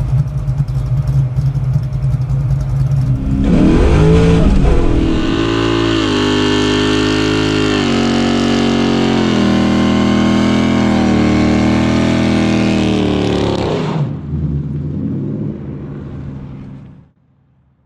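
Mustang V8 idling with a steady low exhaust note, then revved hard about three and a half seconds in and held at high rpm through a tyre-smoking burnout for about ten seconds. The revs fall away around fourteen seconds and the sound cuts out near the end.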